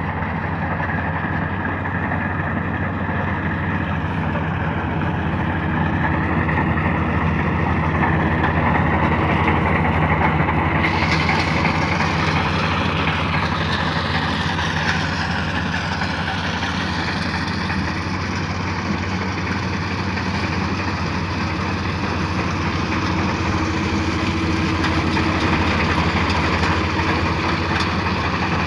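Kubota DC-35 combine harvester running steadily, its diesel engine and harvesting machinery together, with a higher whine that drifts slowly up and down in pitch.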